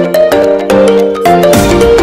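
Background music: a melody of short repeated notes, with a heavier beat and bass coming in about a second and a half in.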